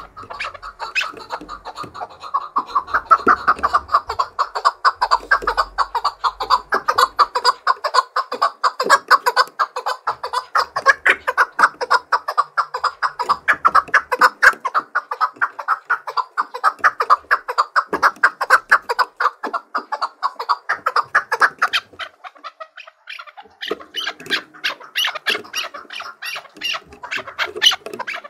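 Male chukar partridge singing its challenge call: a long run of rapid, repeated chuck notes, then after a short pause near the end a louder, sharper series.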